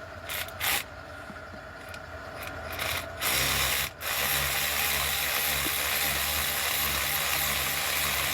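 Power ratchet running in reverse to back out a 12 mm bolt, its gears a little stripped. A few sharp clicks come first, then about three seconds in the motor starts, stops briefly and runs steadily.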